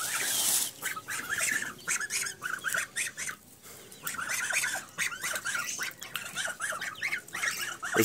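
Backyard poultry flock calling: many short chirps and calls overlapping, with a brief lull about three and a half seconds in.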